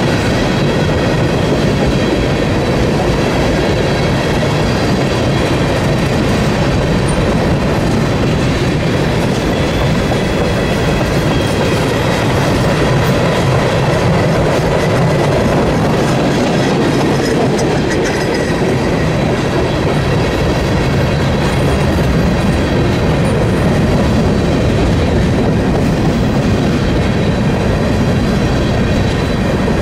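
Freight cars of a manifest train rolling past at steady speed: a continuous heavy rumble of wheels on rail with a clickety-clack over the rail joints. A thin, steady high ringing rides over it.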